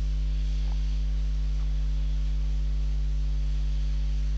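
Steady low electrical mains hum with its buzzing overtones, unchanging throughout.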